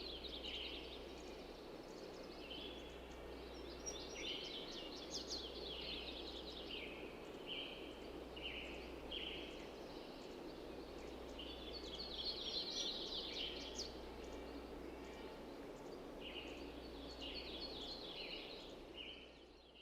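Farmyard ambience: small birds chirping in quick, repeated bursts over a steady background hiss and low hum, fading out near the end.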